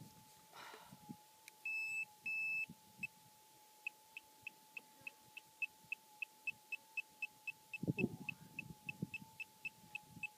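Gold metal detector's electronic audio: a steady threshold tone with two longer high beeps about two seconds in, then a regular run of short high beeps, about four a second. A brief scrape or knock on the rock comes about eight seconds in.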